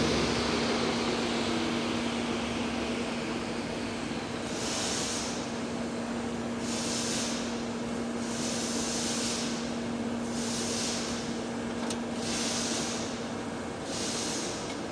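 TIG welding arc on a 24-inch schedule 120 pipe, hissing steadily over a constant hum. From about a third of the way in, the high hiss swells and fades about six times, every second or two, and the hum drops out near the end.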